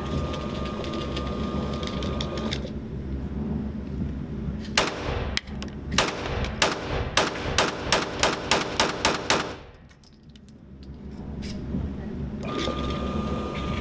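Smith & Wesson M&P9 2.0 9mm pistol fired in rapid succession: a string of about fifteen shots starting about five seconds in, the first few spaced out and then about four a second. Steady background noise before the shots.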